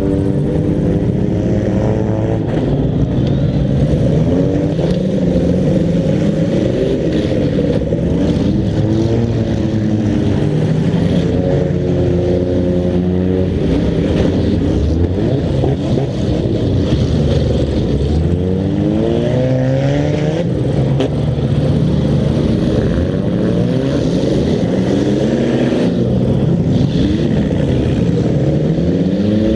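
Demolition derby cars' engines revving hard, their pitch rising and falling again and again, more than one engine at a time.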